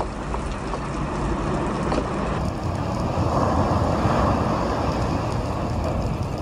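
Surf breaking and washing up a pebble beach, with wind buffeting the microphone; a wave swells up and falls back in the middle.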